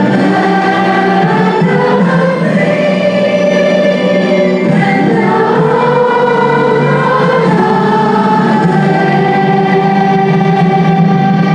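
A choir of students singing a song together over a steady instrumental accompaniment.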